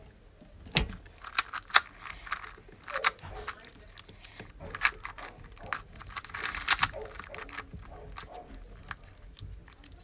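Dayan Tengen 2x2 speed cube being turned rapidly by hand during a timed solve: quick, irregular clusters of light plastic clicks and clacks.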